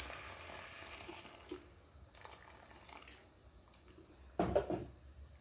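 Hot water poured into an earthenware pot of sautéed rice: a soft splashing trickle that fades over the first second and a half. A brief knock follows about four and a half seconds in.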